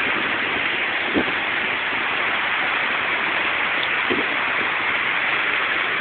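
Storm-swollen creek and waterfall pouring over rocks: a steady rush of white water.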